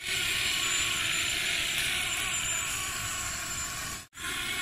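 A toy RC excavator's small electric motors and plastic gearbox whirring steadily as it works. The noise breaks off for an instant about four seconds in, then carries on.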